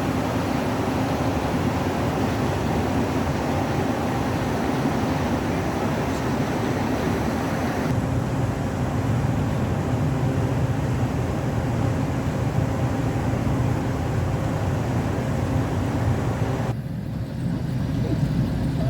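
Steady machine noise with a low hum. The sound turns deeper about eight seconds in and becomes duller near the end.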